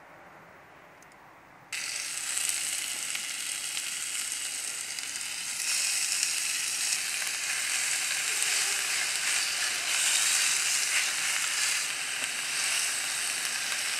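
Thin-sliced beef sizzling in a cast-iron skillet over a wood fire, a steady crackling hiss that starts suddenly about two seconds in.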